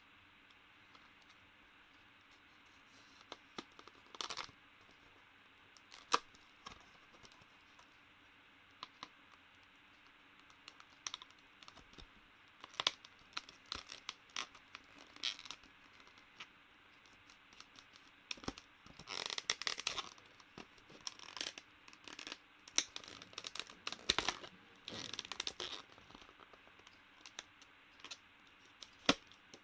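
Packaging of a new SSD being torn open and crinkled by hand, with scattered clicks and scrapes. Sparse at first, then busier rustling and tearing in the second half.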